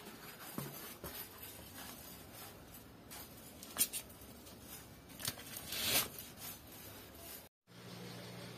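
Paper envelope rustling and scraping as a hand picks it up off a tiled floor: a few short, faint scrapes in the second half, the longest just before the sound cuts off.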